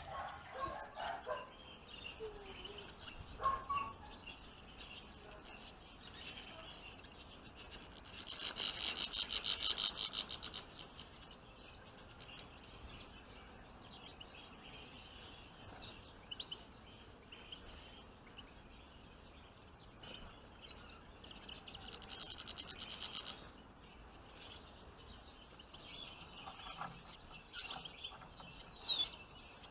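Small songbirds calling: scattered high chirps throughout, broken twice by a loud, fast trill of about two to three seconds, and a few short falling calls near the end.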